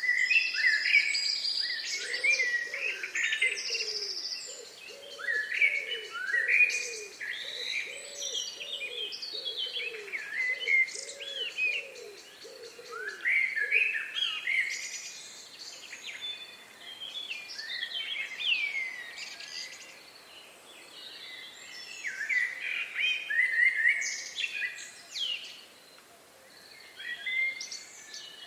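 Several songbirds chirping and singing over one another in quick, varied phrases. A lower call is repeated about twice a second from about two seconds in until about halfway through.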